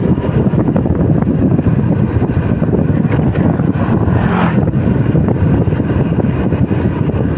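Motorcycle running at a steady cruise, with wind rushing over the microphone and a brief louder hiss about four seconds in.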